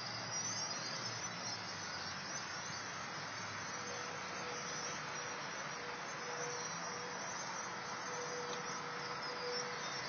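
A flock of birds chattering, many chirps overlapping in a continuous high-pitched din. A faint steady hum joins about four seconds in.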